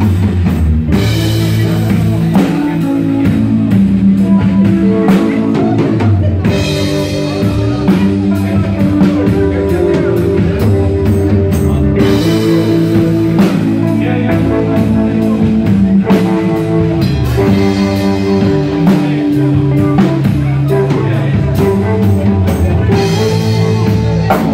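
Live blues-rock band playing loud: electric guitar and bass guitar chords over a full drum kit.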